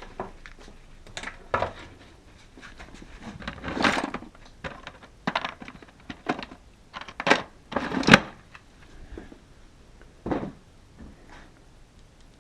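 Irregular clicks and knocks of tools and plastic parts being handled while working on a household refrigerator, about eight separate strikes with the loudest about eight seconds in.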